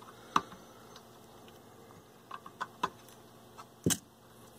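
Diagonal flush cutters snipping off soldered capacitor leads on the back of a circuit board: a handful of sharp, irregular snips, the loudest one near the end.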